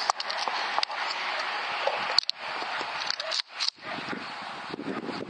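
Rifles being worked to clear misfire stoppages: several sharp metallic clicks from the actions, under hushed whispering.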